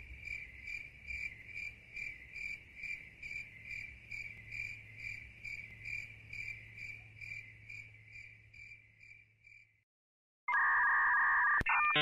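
Cricket chirping sound effect, about three chirps a second over a faint steady hum, fading out and stopping. Near the end a louder electronic beeping tone starts.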